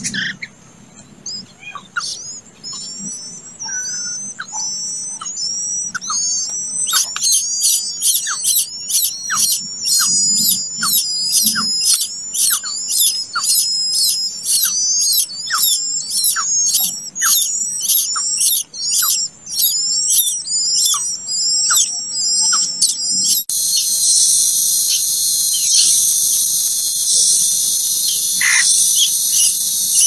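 Nestlings begging for food with short, high-pitched chirps that speed up to about two a second and grow louder. About two-thirds of the way in they turn into a loud, continuous hissing begging chorus.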